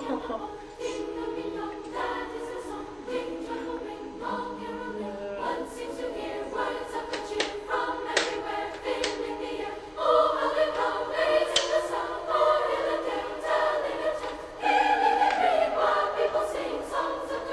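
A choir singing sustained chords, growing louder about ten seconds in and again about fifteen seconds in.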